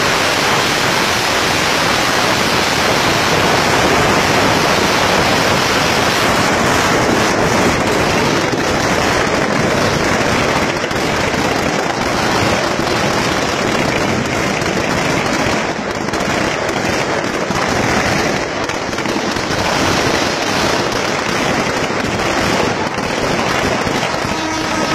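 Firecrackers packed into a large burning effigy going off in a dense, continuous crackle of rapid pops and bangs.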